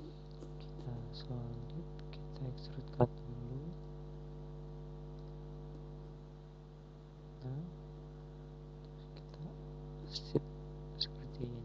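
Steady electrical mains hum with a stack of even overtones, broken by a few sharp single clicks from a computer mouse and faint brief murmurs.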